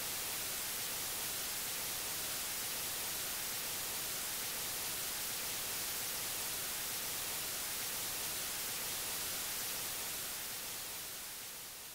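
TV static hiss: a steady, even rush of noise, brightest in the highs, that fades out over the last couple of seconds.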